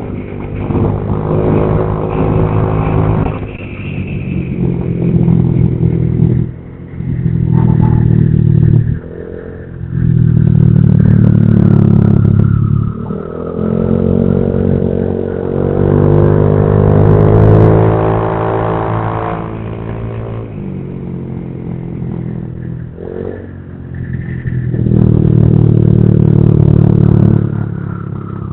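Honda Vario 150 scooter's single-cylinder engine through a replica aftermarket exhaust, with the throttle opened and eased off repeatedly. The bassy exhaust note swells loudly in bursts of a few seconds and drops back in between.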